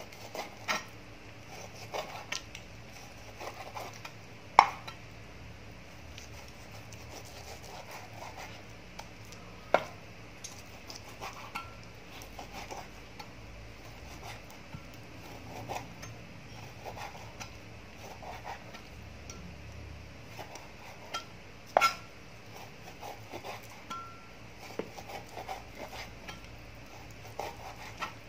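Cleaver cutting raw beef into small pieces on a round wooden chopping board: irregular soft taps and knocks of the blade on the wood, with three sharp, loud strikes about 5, 10 and 22 seconds in.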